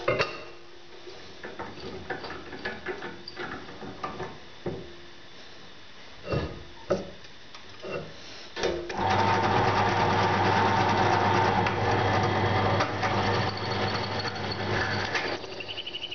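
Knocks and clicks of a steel plate and tools being handled on a bench drill press table, then the drill press motor switches on about nine seconds in and runs with a steady hum for around six seconds before dropping away near the end.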